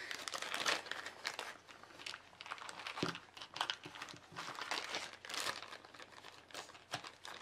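Thin clear plastic bag crinkling and rustling as hands pack small diamond-painting tools back into it, with a soft knock about three seconds in.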